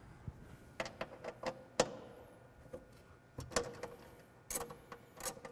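Irregular clicks and light metallic taps from a socket wrench being fitted to and worked on the bolts that hold the PCM to the firewall.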